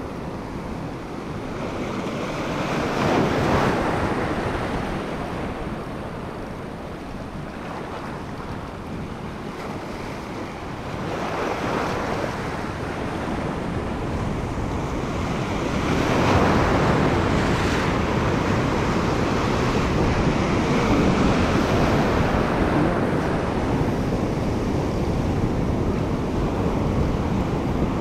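Ocean surf washing over a shallow rock reef ledge, swelling and ebbing in repeated surges, louder from about halfway through.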